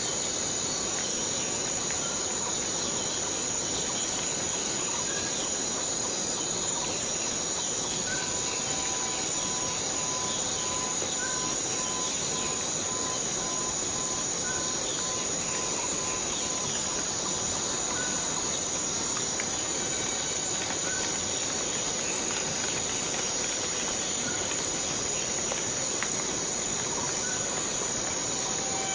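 Tropical rainforest ambience: a steady hiss of rain under a constant high-pitched insect drone, with faint short chirps repeating about every second and a half.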